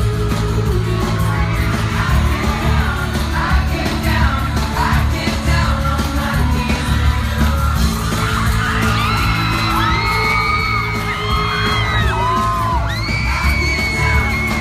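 Live pop band performance: a boy band singing over drums, bass and guitar in a large hall, with fans screaming and cheering along, high held screams standing out in the second half.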